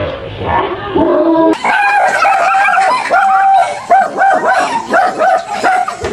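A dog yipping and whining in a quick run of short, high calls, from about a second and a half in.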